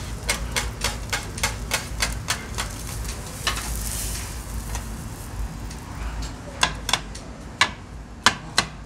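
Steel bench scrapers clicking against a flat-top griddle in a quick regular run, about three a second, as an egg omelette is rolled, with a brief sizzling hiss about four seconds in. Near the end, a few sharper, louder clicks as the scraper cuts the rolled omelette on a plate.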